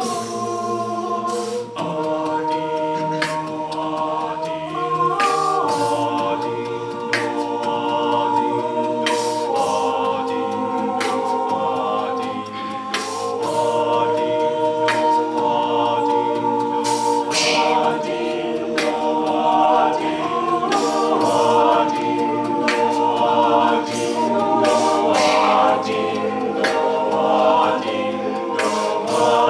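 University a cappella group singing sustained vocal chords that shift every few seconds, with vocal percussion keeping a steady beat.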